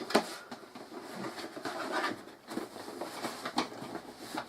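A cardboard game box being opened and its packaging handled: scattered rustles, scrapes and light taps, with a sharper knock just after the start and another about three and a half seconds in.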